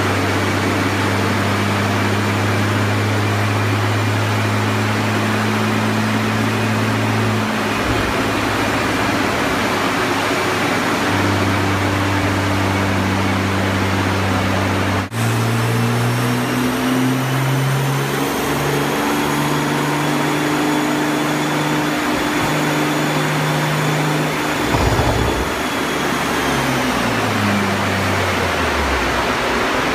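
Engine of a 2016 Porsche 911 Turbo S, a twin-turbo flat-six tuned to about 730 hp, running on a chassis dynamometer. It holds steady speeds that step up and down, with a faint high whine, over a steady loud rush of air from the dyno's cooling fan, and winds down near the end.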